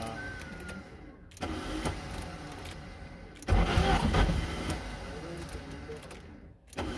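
Car engine cranking on the starter in repeated attempts without catching. It stops briefly about a second in, cranks harder from about three and a half seconds, and stops near the end. The ignition timing had just been advanced, too far by the mechanic's reckoning.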